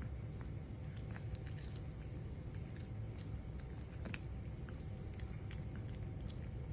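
A small dog chewing a piece of rabbit jerky: irregular little clicks and crunches over a steady low hum.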